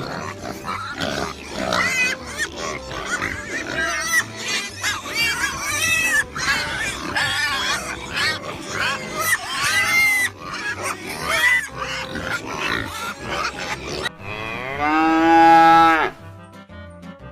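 A run of short, varied farm-animal calls, then near the end one long, loud cow moo that rises and then falls in pitch, over background music.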